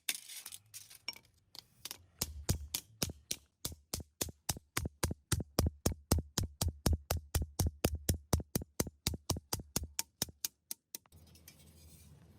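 Rapid, evenly spaced hammer taps on sheet metal, about five strikes a second, stopping abruptly near the end.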